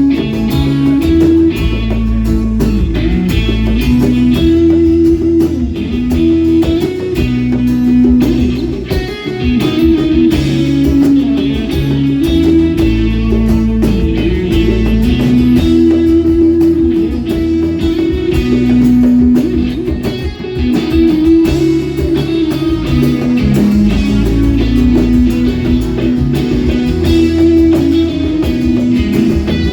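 A band playing an instrumental break of a song, led by guitar over a steady low bass line, with no singing.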